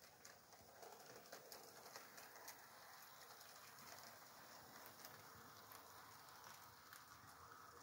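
HO scale model train running around a tight curve: faint ticking and rattling of its small wheels on the track, a little louder from about a second in as it comes close.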